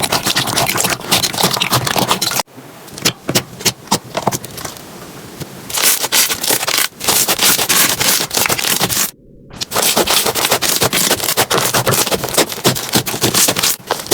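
Slime being squeezed and pressed by hand, giving dense crackling, popping clicks and squelching. It drops off abruptly about two seconds in, and the clicks are sparser for a few seconds. Near the middle it cuts off briefly, then the dense crackling resumes.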